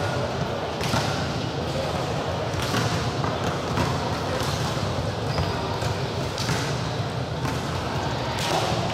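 Sports-hall din of many voices talking at once, with several irregular thuds of balls striking the floor.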